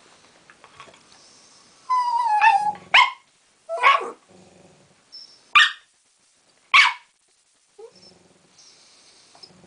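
A West Highland White Terrier whines in a wavering, falling tone, then gives four sharp barks spaced a second or so apart: frustrated demand barking at the other dog that is keeping its ball.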